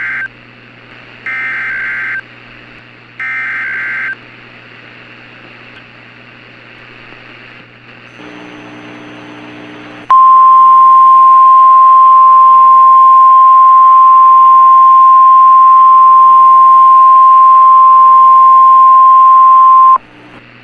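Emergency Alert System SAME header: three short bursts of warbling data tones about a second apart. After a pause comes a loud, steady NOAA Weather Radio 1050 Hz alert tone that holds for about ten seconds and cuts off suddenly, the signal that a warning message (here a fire warning) follows.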